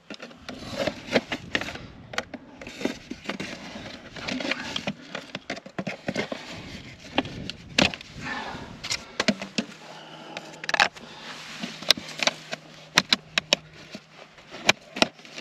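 Corrugated plastic drainage tile being worked by hand onto a plastic tee fitting: irregular plastic clicks, crackles and scrapes, with soil rustling.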